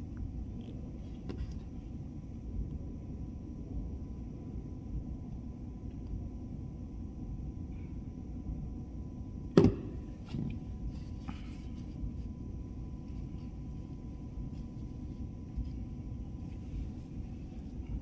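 Handling noise while a fiber optic cable is worked in a small fiber holder: faint small clicks over a steady low rumble, with one sharp knock a little after halfway.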